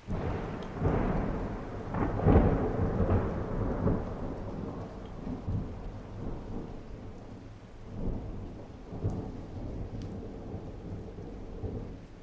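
Thunder breaking in suddenly with a crackling clap that is loudest about two seconds in, then rolling and slowly dying away, with a smaller swell near the end. Heavy rain falls steadily underneath.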